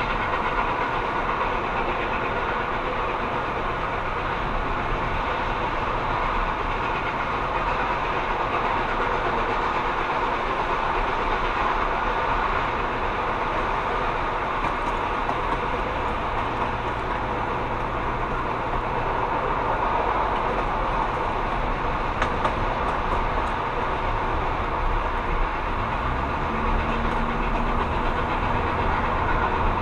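Steady road and wind noise of a car driving at speed, heard from inside the cabin, mixed with the rumble of a passenger train running alongside.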